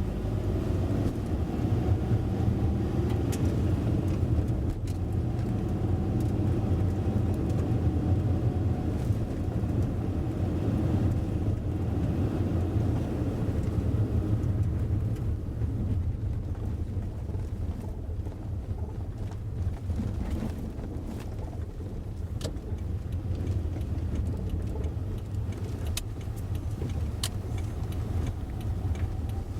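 Car driving, recorded from inside the vehicle: a steady low rumble of engine and tyres on the road, with a few short sharp clicks along the way.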